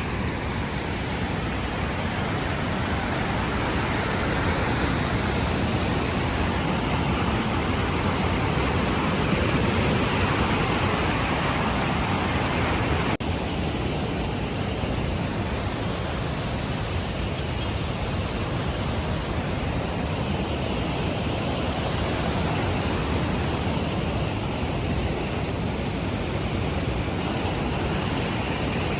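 Cheeyappara waterfall: a steady, dense rush of falling water. About halfway through it steps abruptly to a slightly quieter level.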